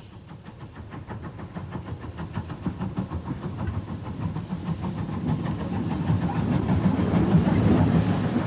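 Steam train running, with a quick, even rhythmic beat, growing steadily louder.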